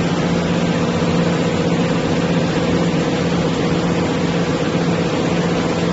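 Silicone wire extrusion line running steadily: a constant machine hum with a few fixed tones over an even hiss.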